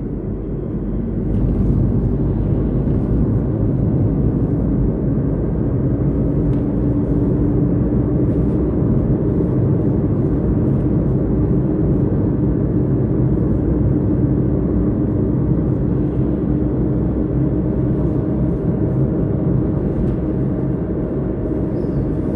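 Motorcycle running at steady speed while being ridden: a steady engine note under low road and wind rumble, growing louder about a second and a half in.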